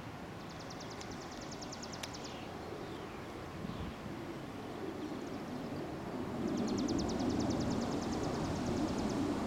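B-2 Spirit stealth bomber's jet engines passing overhead at a distance: a low rumble that grows louder about two-thirds of the way through. A small bird's rapid high trill sounds twice over it.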